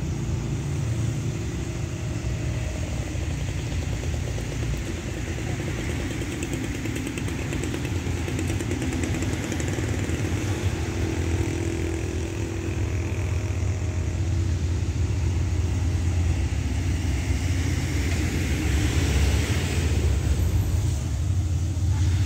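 A diesel-electric locomotive hauling an express train approaches, its low engine rumble growing steadily louder, and a rushing hiss swells near the end.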